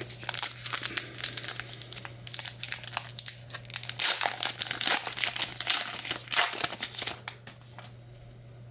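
Plastic trading-card pack wrapper crinkling and being torn open, a dense crackle that dies away near the end.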